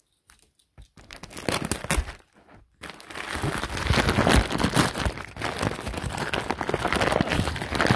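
Cardboard box and plastic packaging being handled and pulled open, crinkling and rustling. A few scattered crackles come first, then steady rustling from about three seconds in.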